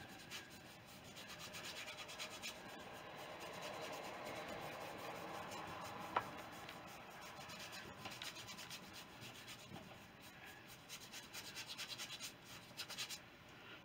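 A paintbrush scrubbing and blending oil paint across a painting board in quick, short back-and-forth strokes. The strokes come in runs and are busiest in the last few seconds.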